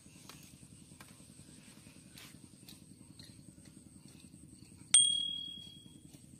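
A few soft clicks and taps while a portable butane gas stove is being set up. About five seconds in comes one sharp metallic clink, ringing on with a high clear tone that fades over about a second.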